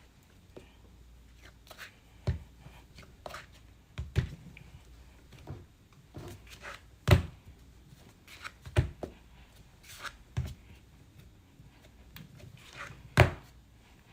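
A lump of clay being thumped and patted against a work table by hand to reshape it, a series of irregular dull thuds with the two heaviest about halfway through and near the end.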